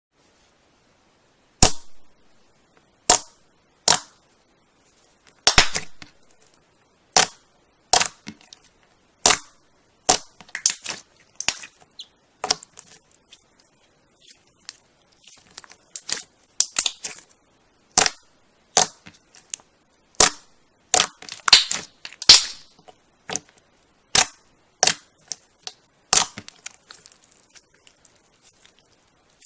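Slime being pressed and poked, giving sharp pops and clicks about once a second, with quick crackling clusters around ten seconds in and again past twenty, and silence between them.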